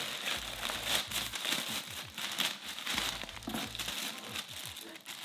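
Crinkling and rustling of plastic or paper packaging being handled, as a newly bought item is unwrapped, with a low hum that comes and goes.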